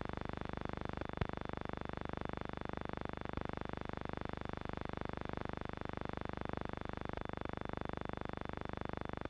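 Steady hum and hiss of a vintage film soundtrack with no program sound, with a fast even flutter and a few sharp clicks.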